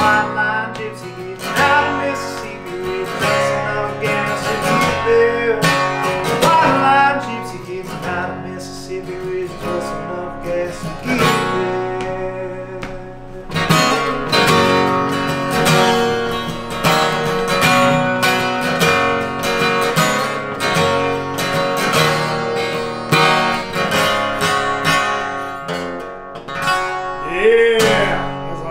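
Steel-string acoustic guitar played solo, strummed chords mixed with picked single notes, an instrumental stretch of a song.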